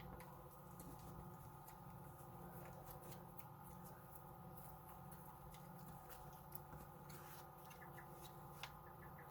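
Faint, steady drone of a Case IH 8950 Magnum tractor's diesel engine running at a constant pull, with scattered light clicks and rattles.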